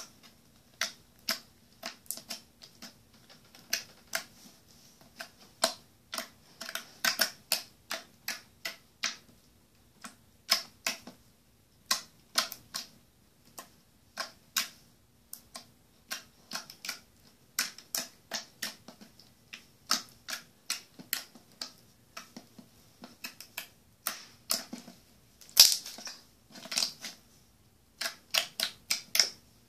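Clear crunchy slime being poked and pressed by fingers, giving irregular sharp crackles and pops, often several a second in quick clusters, with pauses between.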